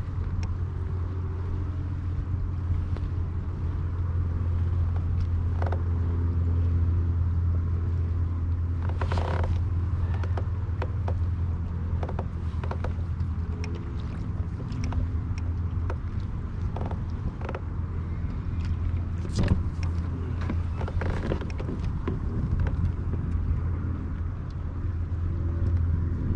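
A steady low hum, with scattered clicks and light knocks from a fishing rod and spinning reel being handled aboard a kayak.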